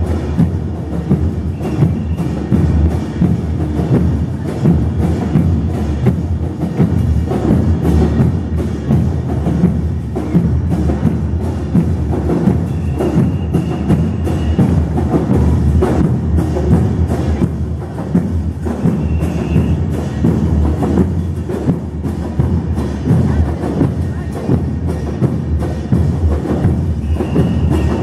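Murga porteña drumming: bombos con platillo (bass drums with a cymbal mounted on top) and snare drums playing a steady, driving dance rhythm. It is loud and continuous, with dense low drum beats and sharp cymbal and rim strikes.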